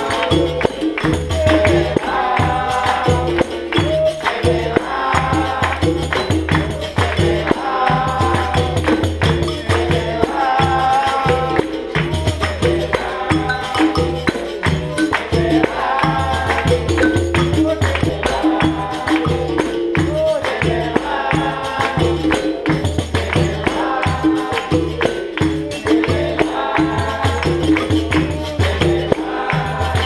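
Capoeira Angola roda music: a hand drum and tambourines keep a steady rhythm under a group singing a short chorus that repeats about every two and a half seconds.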